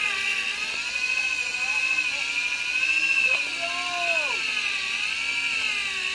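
Fishing reel whining steadily under the pull of a hooked yellowfin tuna, its pitch wavering up and down. A short shout of "fish on!" comes about three to four seconds in.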